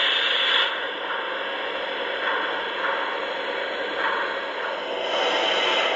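O-scale model PRR T1 Duplex steam locomotive and tender running along the layout track: a steady mechanical rolling and gear noise from the wheels and drive, a little brighter near the start and near the end.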